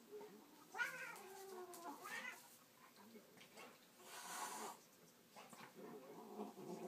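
Domestic cat yowling twice in bending, wailing calls, then a short hiss about four seconds in, during a rough play fight with a dog; lower growling near the end.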